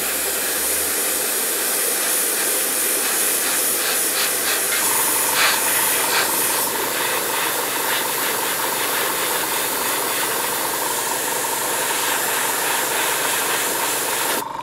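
Airbrush spraying grey paint through a stencil onto a model: a steady hiss of air and atomised paint that cuts off sharply near the end when the trigger is released.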